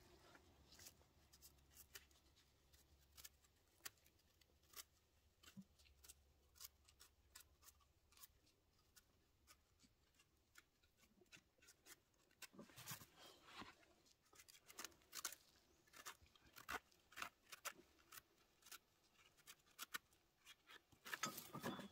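Knife cutting and scraping a firm king bolete (porcini): faint, scattered crisp clicks and snaps, busier from about halfway through and near the end. The crisp sound is the sign of dense, firm mushroom flesh.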